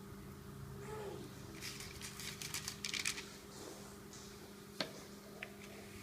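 Faint scraping and light clicks of pizza sauce being spread over dough, in a short cluster partway through and two small taps later, over a low steady hum.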